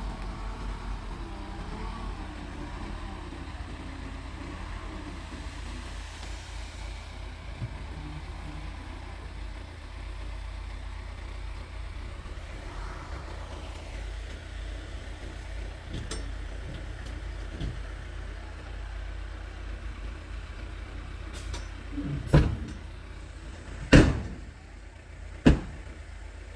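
Bulldozer's diesel engine running with a low steady rumble. Near the end, three loud bangs come about a second and a half apart.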